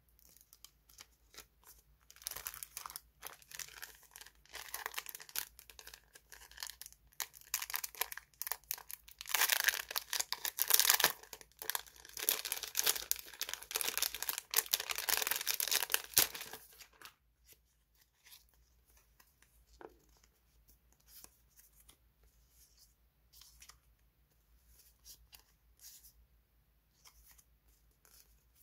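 Clear plastic sticker packet crinkling and crackling as it is torn open and handled, loudest in the middle stretch and stopping abruptly. Then only soft rustles and light taps of die-cut paper stickers being shuffled.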